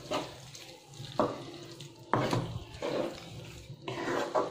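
A spatula stirring thick soya keema and peas in a nonstick kadhai, scraping across the pan in a few strokes about a second apart.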